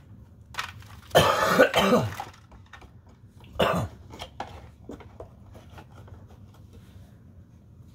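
A person coughing: a short fit of coughs about a second in and one more cough a little before four seconds in. Between and after the coughs there are faint small clicks and rustles of handling.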